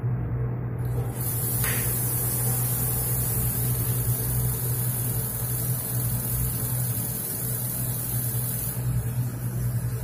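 Water running through an LPG instantaneous water heater and out of the shower, a steady rushing hiss with a low hum under it. About a second in, a high, fine hiss from the heater's electric igniter sparking starts, and it stops near the end. The ignition system is working, but the burner does not light because no gas is reaching it.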